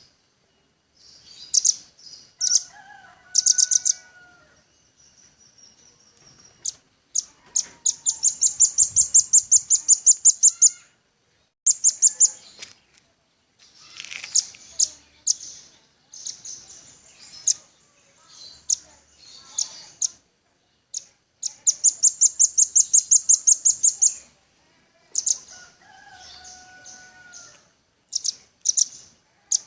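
Velvet-fronted nuthatch singing: high, sharp chips and two long, rapid rattling trills, with a fainter, lower whistled phrase twice.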